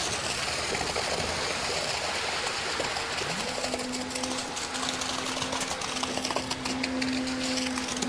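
Concrete pump running as wet concrete gushes out of the pump hose into a form, a steady rushing noise with scattered small splats and clicks. A low steady hum rises in and holds from about three and a half seconds in.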